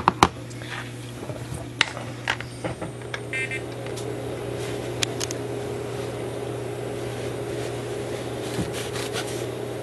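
Small brass clock parts clicking as they are handled and set down on the bench, then paper tissue rubbing and rustling over a brass clock wheel and its arbor to wipe off the grime, over a steady low hum.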